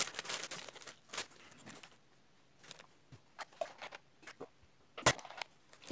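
Scattered small handling noises, crackles and clicks, as a snack and a plastic soda bottle are handled while eating and drinking, with one sharp knock about five seconds in.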